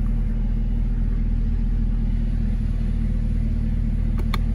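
Supercharged 6.2 L V8 (LT4) of a 2019 Chevrolet Camaro ZL1 idling steadily, heard from inside the cabin. Near the end come two quick clicks, and then the engine shuts off abruptly.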